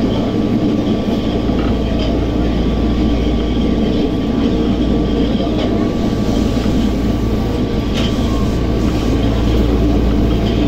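Tokyo Metro 02 series subway train running at speed through a tunnel, heard from inside the car: a steady rumble of wheels on rail and tunnel roar, with a faint steady whine from the PMSM traction motors and a few light clicks.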